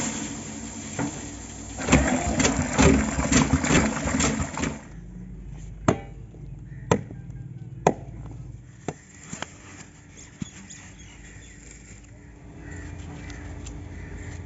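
Dry rice grains poured into a metal pot, a rushing rattle of grains for the first few seconds. Then a hoe blade chops into dry, dusty earth, about six sharp strikes roughly a second apart.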